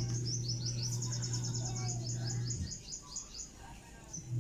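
A small bird singing a fast trill of short, high, falling chirps, about ten a second, that stops about three and a half seconds in. Under it runs a steady low hum that cuts out a little past halfway.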